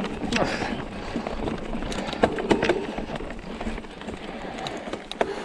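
Mountain bike riding over a rough trail: tyres rolling on gravel and rock, with irregular clicks and knocks as the bike rattles over the bumps, and wind rumble on the microphone.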